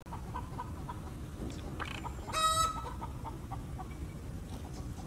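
Chickens clucking softly, with one loud, short squawk a little past halfway.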